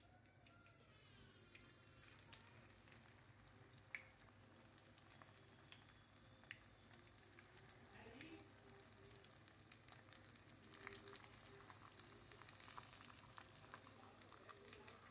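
Samosas frying in shallow oil in a pan: a faint sizzle with fine crackles that grow denser toward the end, and a few soft clicks.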